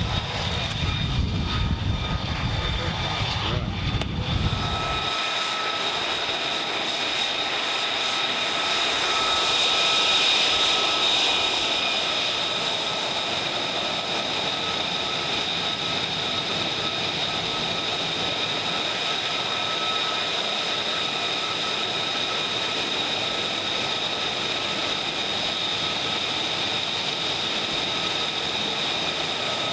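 Lockheed Martin F-35A's single Pratt & Whitney F135 turbofan. It first gives a deep rumble as the jet rolls out on the runway, which cuts off about five seconds in. A steady high whine of the engine at idle follows as the jet taxis, louder for a few seconds about ten seconds in as it passes close by.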